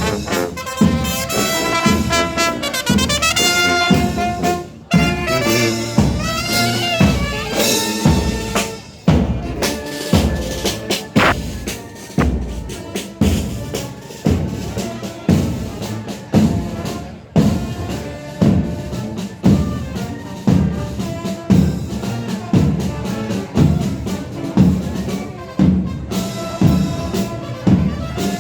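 Marching-band music: trumpets and trombones playing a tune over a steady drum beat.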